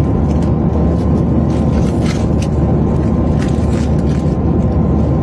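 Steady low rumble of an airliner cabin in flight, with a few brief crackles of a snack wrapper being handled about two and three and a half seconds in.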